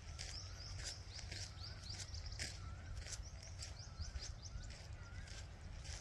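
Footsteps of a steady walk, about two steps a second, with birds chirping in quick repeated calls over a low rumble.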